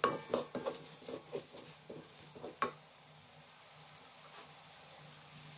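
A wooden spatula scrapes and stirs spice paste in a metal wok, several strokes a second, stopping about two and a half seconds in. After that the paste keeps up a faint steady sizzle as it fries.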